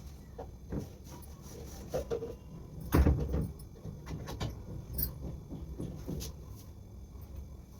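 Scattered knocks and clatter of household objects being handled and set down, the loudest about three seconds in.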